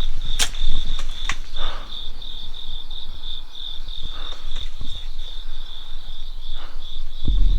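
Crickets chirping steadily, a high pulsed trill of about three to four pulses a second, with a couple of sharp clicks in the first second and a half.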